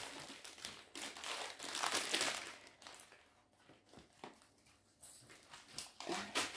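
Clear plastic film on a large diamond-painting canvas crinkling as the canvas is handled and flattened. The rustling is louder about a second in and again near the end, with quieter crinkles between.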